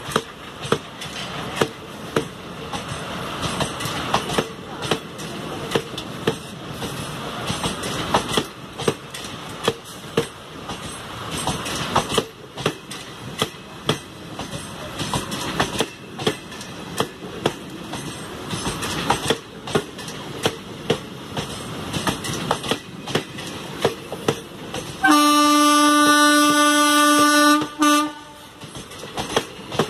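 Passenger coaches rolling past close by, their wheels clicking steadily over the rail joints. Near the end a locomotive horn sounds loudly on one steady note for about three seconds.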